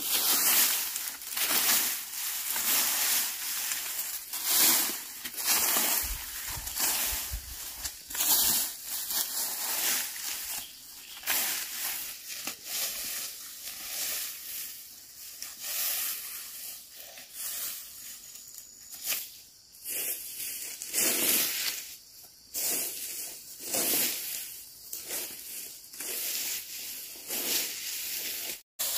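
Dry grass and corn-stalk litter being raked and dragged over dry soil with a wooden stick: a rustling scrape with each stroke, repeated one after another.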